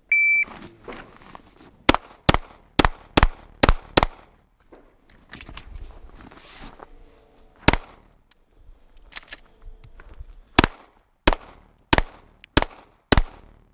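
A shot timer's start beep, then pistol shots in a competition course of fire. Six quick shots come about half a second apart, then a pause, then a single shot. After another pause, five more shots follow at a steady pace of a bit more than half a second apart.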